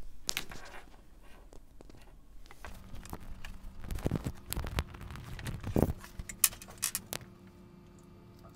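A baby's hands picking at and handling small pieces of finger food on a plate: scattered small clicks, taps and rustles, busiest in the middle.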